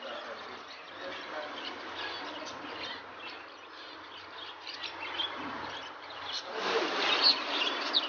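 Many caged finches chirping together in a dense twittering chorus that gets louder about six and a half seconds in.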